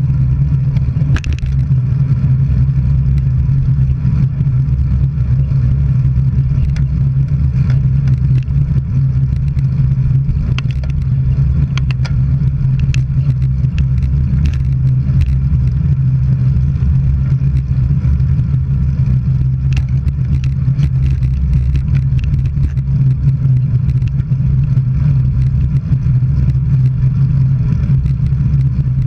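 Steady low rumble of road and wind noise from travelling along a road, with scattered light clicks.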